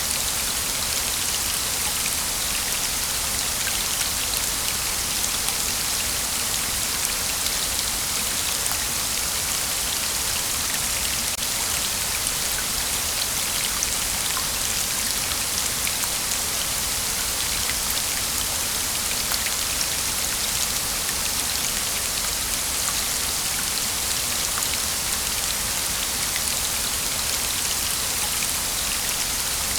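Waterfall: water falling and splashing continuously as a dense, steady hiss sprinkled with many small droplet ticks.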